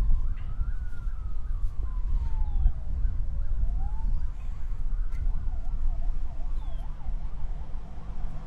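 An emergency-vehicle siren sounds faintly. It first wails in slow rises and falls, then about four seconds in switches to a quick yelp warbling about three times a second. A steady low rumble runs underneath and is louder than the siren.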